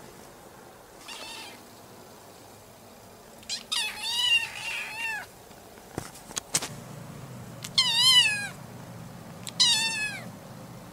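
Orange tabby kitten meowing in high, wavering calls: a faint one about a second in, a long drawn-out one, then two shorter ones near the end.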